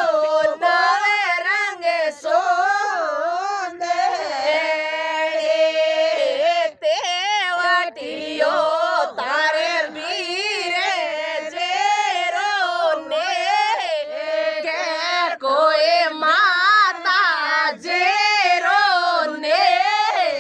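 A woman sings a Rajasthani wedding folk song (vivah geet) without any instruments. Her high voice carries a continuous melody full of wavering ornaments, with a few long held notes about four to seven seconds in.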